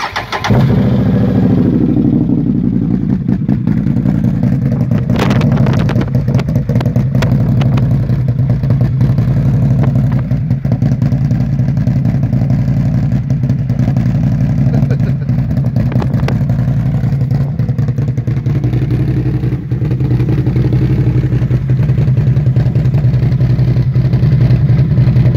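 Can-Am 850 XMR ATV's V-twin engine through an Empire Duel aftermarket dual exhaust, starting up, running higher for a second or two as it catches, then settling into a steady idle.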